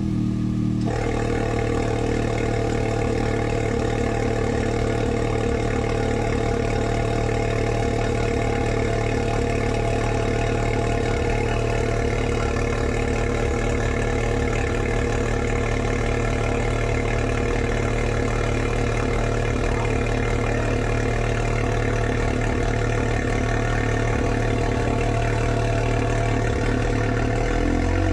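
Can-Am Maverick X3's turbocharged three-cylinder engine idling steadily through an RPM E-valve exhaust with a Monster Mouth cat delete. The note changes near the end.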